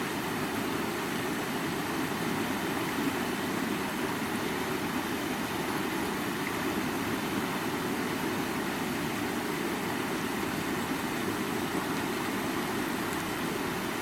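River water flowing, a steady rushing noise with a deep, full body.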